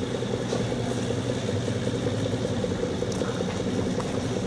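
SNCF X 2800 diesel railcar's engine running with a steady drone as the railcar set pulls away, with a few faint clicks over it.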